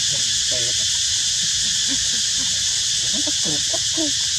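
Steady, loud, high-pitched drone of an insect chorus, with faint low voices underneath.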